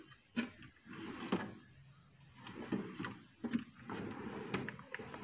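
Drawers of an eight-drawer tool chest being slid open and shut several times, with clicks and knocks as they run and stop and the tools inside shift.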